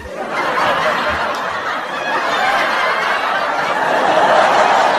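Crowd laughter, a dense, continuous laugh track, growing louder toward the end.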